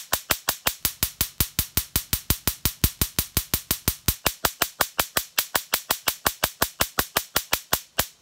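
Spark gap of a homemade Tesla coil firing: a steady, evenly spaced train of sharp cracking snaps, about five or six a second. Each snap is the coil's capacitor bank discharging across the gap.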